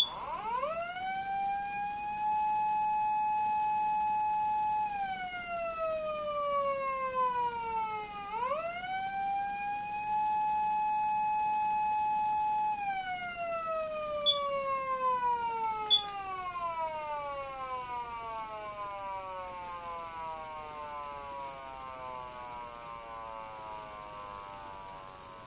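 Patlite SAP-500BK-PV electronic siren amplifier sounding a wail tone. It rises to a steady high note held for about two and a half seconds, slides slowly down, then rises and holds again. After two sharp switch clicks it winds down slowly in pitch and fades, like a motor siren coasting to a stop.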